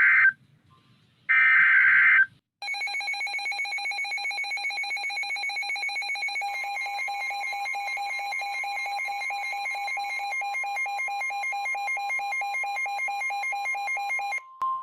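NOAA Weather Radio alert sequence. First come the end of the digital SAME header: two short bursts of screechy data tones. Then a weather radio receiver's alarm starts beeping in a fast, pulsing electronic pattern, and about four seconds later the station's steady warning alert tone joins it; both stop near the end. Together they signal a new severe thunderstorm warning about to be read.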